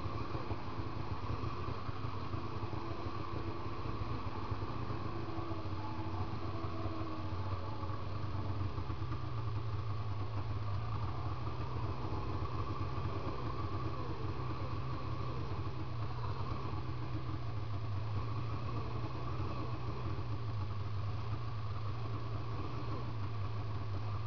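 Snowmobile engine, a 2000 Polaris 800 RMK's two-stroke twin with an SLP aftermarket pipe, running steadily while the sled rides downhill. Its low note grows stronger about nine seconds in.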